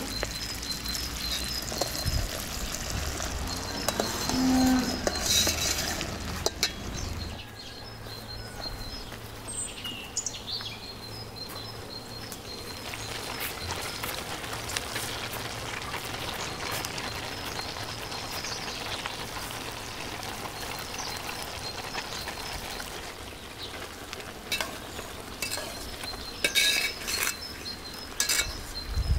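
Syrup for violet jam bubbling at a rolling boil in an enamel pot, with a metal spoon clinking against the pot now and then.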